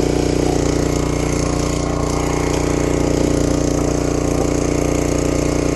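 Gas engine of a Brute 35-ton log splitter running steadily at a constant speed.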